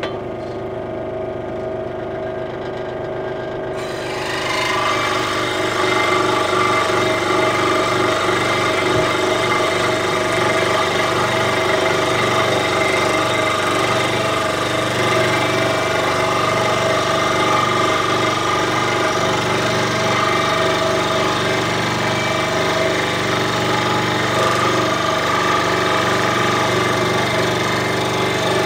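Central Machinery 16-inch scroll saw running at full speed. About four seconds in, its blade begins cutting a piece of wood and the sound gets louder and fuller, then holds steady through the slow cut. The owner blames the hard feeding on a very dull blade or blade tension that is too light.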